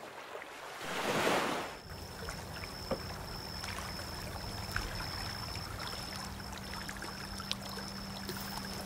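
A rising whoosh about a second in, then lakeside night ambience: crickets trilling steadily in a high, slightly pulsing tone over gentle water lapping at the shore.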